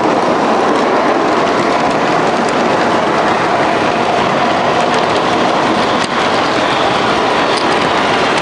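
MTH model subway train running on its track: a steady, even running noise of motor and wheels with no pause.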